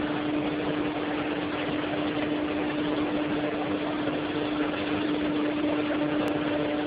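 X560 wood pellet mill production line running: a steady mechanical noise with a constant hum.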